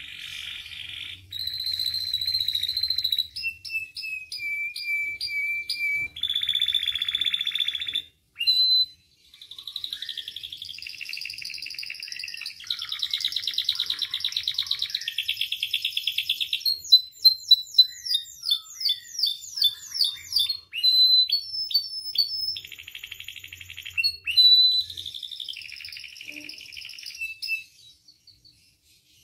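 Domestic canary singing a long, varied song: buzzy rolling trills, clear whistled notes and runs of fast repeated down-slurred notes, with barely a pause. There is one brief break about eight seconds in, and the song stops shortly before the end.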